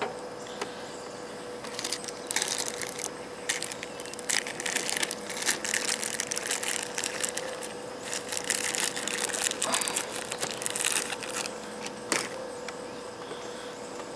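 Handling noise close to the microphone: crackling rustle and scraping in irregular bursts from about two seconds in, with a sharp click near the end, over a faint steady hum.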